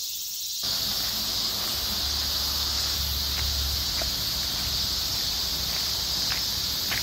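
Steady high-pitched chorus of summer insects, with a few faint footsteps on a gravel path in the second half.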